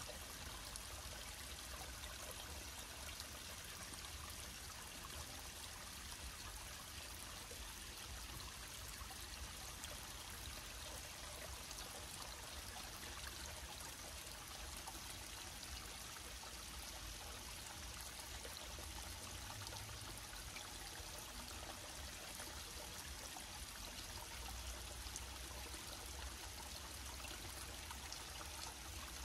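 Steady rush of running water from a forest stream, even and unbroken, with a low rumble underneath.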